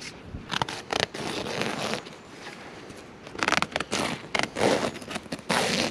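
A knife blade slicing through thin nylon parachute fabric along a seam, with the cloth rustling as it is pulled taut. It comes as a few scraping cutting strokes early on, then a longer, denser run of them in the second half.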